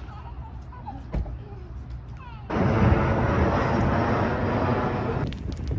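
Jet airliner's engines passing low overhead: a loud, dense rumble that starts abruptly about two and a half seconds in and cuts off a little before the end. Before it there is a quiet outdoor background with a couple of sharp knocks.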